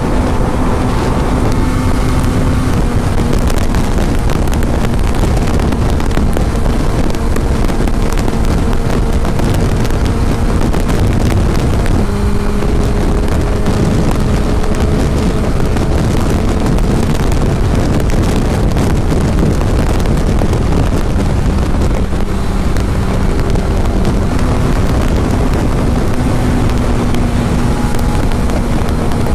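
Heavy wind noise on the microphone over the steady drone of a 2005 Suzuki GSX-R600's inline-four engine at highway speed. The engine note drops suddenly about twelve seconds in and rises again later.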